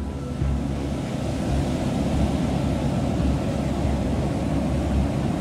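Water rushing and churning in a ship-model test tank: a steady noisy wash with a low rumble beneath it.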